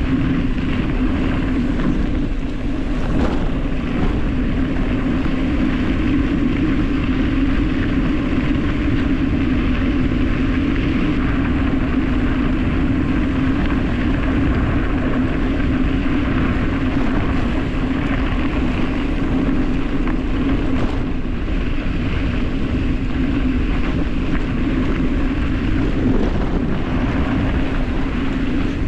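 Wind rushing over the microphone and tyres rumbling on dirt and gravel during a fast downhill run, a steady noise with a strong low hum.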